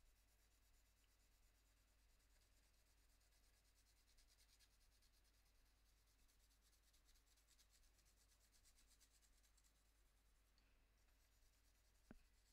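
Very faint, rapid scratching of a Prismacolor Premier colored pencil shading back and forth on Fabriano toned paper, laid on lightly. A single small click near the end.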